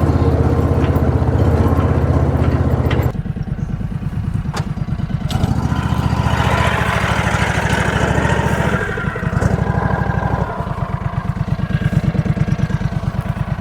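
For about the first three seconds, steady low tones that carry on from the music before; then a small engine running steadily, its firing pulses even.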